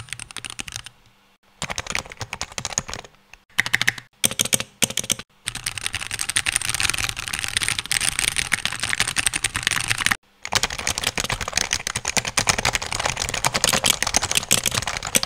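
Fast typing on mechanical keyboards, a Keychron Q1 with an aluminium case and an HHKB, with their key sounds heard side by side. Short bursts of key clicks with brief pauses come first, then long continuous runs of typing.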